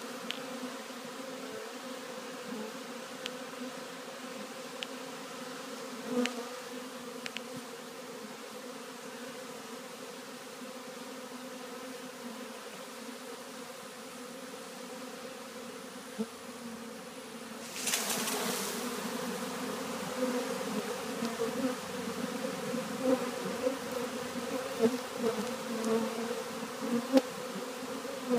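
Steady hum of a swarm of honey bees, many wings beating at once as the swarm moves into a new hive, with individual bees swelling louder as they pass close. About 18 seconds in there is a brief rushing noise, and after it the buzzing is louder and more uneven.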